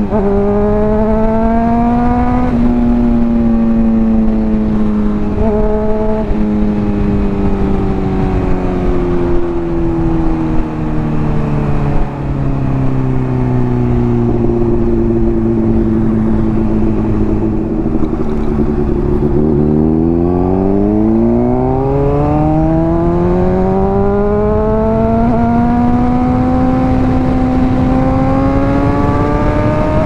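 Honda CBR600RR's inline-four engine through a Hotbodies Stinger slip-on exhaust under riding. The revs climb and fall away sharply in an upshift about two and a half seconds in, sink slowly for most of the first two-thirds as the bike slows, then climb steadily again toward the end.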